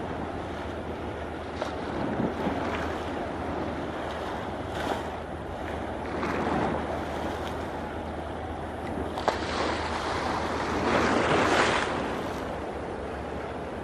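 Outdoor rushing noise, like wind or distant surf, swelling several times and loudest about eleven seconds in, over a steady low hum.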